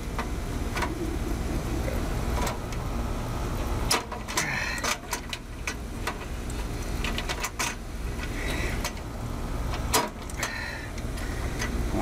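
Steel pliers clicking and scraping on the metal spade terminals of an old air-conditioner contactor as its wires are pulled off one at a time, in a dozen or so sharp clicks over a steady low rumble.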